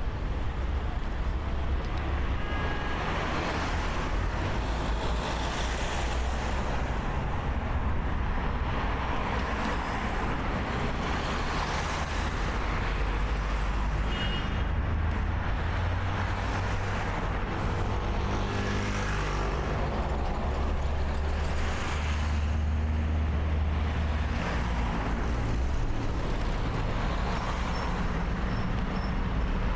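Road traffic: cars and trucks passing steadily, each pass swelling and fading every few seconds over a continuous low rumble.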